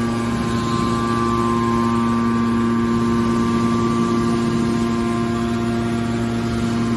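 Industrial machine running with a steady, unchanging hum made of several constant tones.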